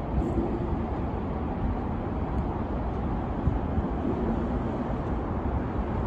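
Steady low rumble of road traffic on the elevated expressway overhead, with wind buffeting the microphone.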